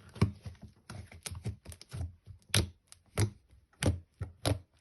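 Fluffy slime being kneaded and stretched by hand, giving a series of sharp sticky snaps and pops, one or two a second.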